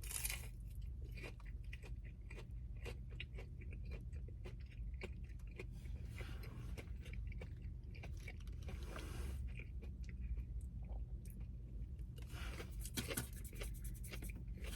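Close-up chewing and biting of crispy fried food, most likely a breaded mozzarella stick, with many small irregular crunches and wet chewing noises.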